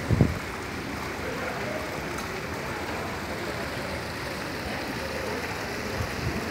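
Steady splashing of a stone garden fountain's water jets, with a brief low thump just after the start.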